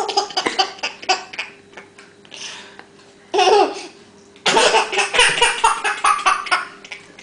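A small child laughing in several bursts, the longest one coming a little over halfway through.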